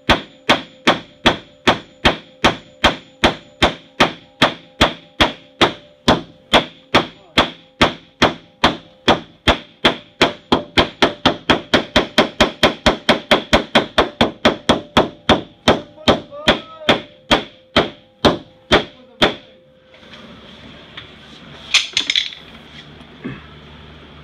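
A hammer striking metal over and over, each blow ringing, about two to three blows a second, quickening to about four a second midway, then stopping shortly before the end. The hammering is aimed at a Honda Civic wagon's hood latch, which won't catch after a Skunk2 radiator install. A short clatter follows near the end.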